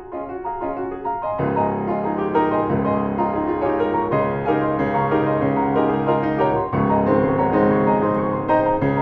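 Solo piano playing a rhythmic contemporary classical piece. Light, quiet repeated notes give way about a second and a half in to loud, full chords with a low bass line.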